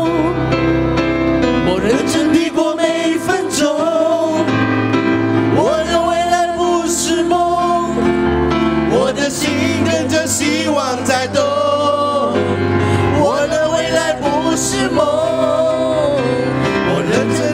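A group of men singing a Mandarin pop song live into microphones through a PA, over instrumental backing.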